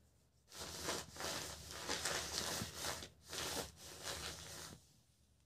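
Handling noise: rustling and rubbing in several bursts with short gaps, starting about half a second in, as small parts are moved about on the work surface.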